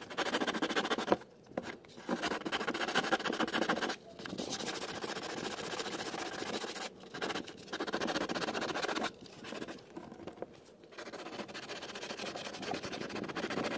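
Coarse sandpaper rasping by hand along the rough edge of a cured fiberglass panel, trimming it back. It comes in stretches of a few seconds with short pauses between.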